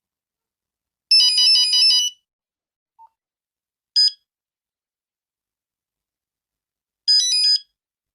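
Nokia 5110 monophonic ringtone beeping. About a second in comes a quick run of high electronic notes lasting about a second. A single beep follows near the middle, then another short run of notes near the end, with silent gaps between.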